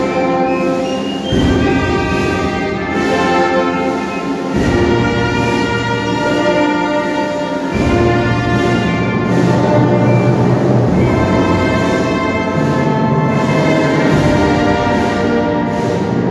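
Processional band playing a slow funeral march, with sustained brass chords and the low brass entering with new phrases every few seconds.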